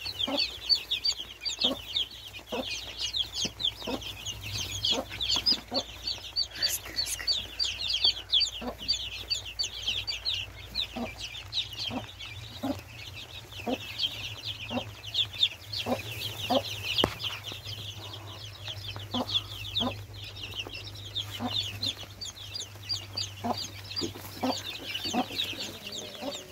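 A large brood of chicks peeping continuously in a dense high chatter, while a mother hen clucks low and short, over and over, about once or twice a second.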